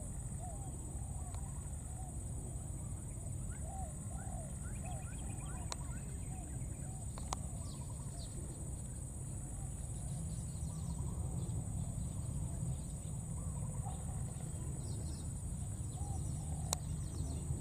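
Outdoor ambience of many short animal calls, each rising and falling in pitch, repeating over a steady high-pitched hum and a low rumble that grows louder about halfway through. A few sharp clicks stand out.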